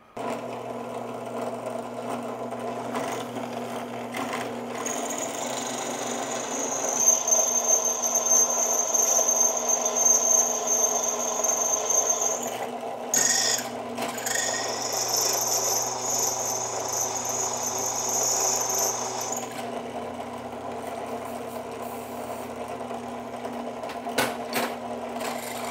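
Electric drill running steadily as a lubricated bit cuts into a metal bracket, with a high cutting squeal that sets in about five seconds in, breaks off briefly about halfway and stops a few seconds before the end while the motor keeps running.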